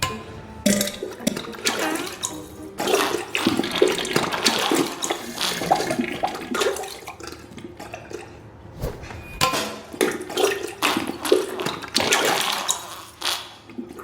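Diarrhea sound effect: a rapid, irregular string of wet sputtering splats and bursts into toilet water, thinning out briefly about two-thirds of the way through before picking up again.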